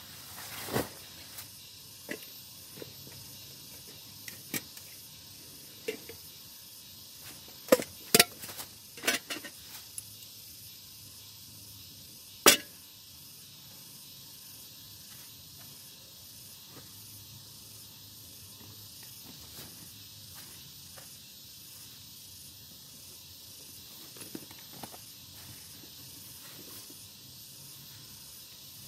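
A scattering of short, sharp knocks and clicks, most in the first half and loudest in a quick cluster around eight seconds and a single one about twelve and a half seconds in, over a steady faint hiss.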